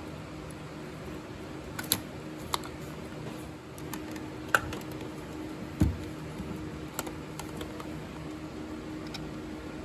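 Scattered light clicks and taps, about six, with one duller knock near the middle: a plastic wiring connector being unplugged and a T20 screwdriver working the screws as the throttle position sensor comes off the throttle body. A steady low hum runs beneath.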